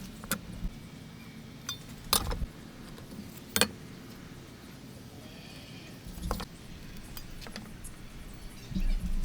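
Hand woodworking: a few sharp, irregular knocks and taps of hand tools on wood, spaced one to three seconds apart.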